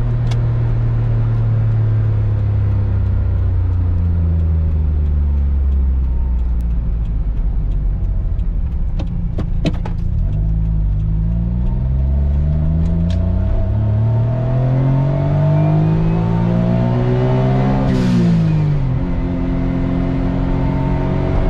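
Turbocharged three-cylinder engine and aftermarket catalyst-downpipe exhaust of an Autozam AZ-1, heard while driving. The revs sink slowly for about ten seconds, then climb steadily, drop sharply at a gear change about eighteen seconds in, and hold steady after.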